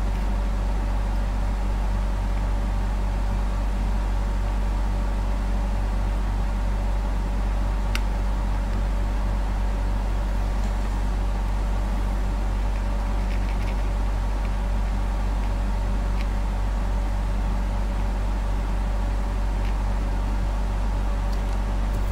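Steady low electrical mains hum with evenly spaced overtones, unchanging throughout, with a couple of faint ticks.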